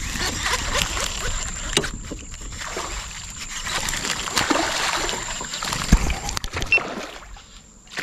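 Water splashing and sloshing around a kayak while a hooked piraputanga is fought close to the boat, with a steady high whine in the background that stops about seven seconds in.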